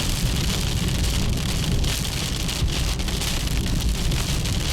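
Heavy rain pelting a moving car, heard from inside the cabin, with a steady low rumble underneath.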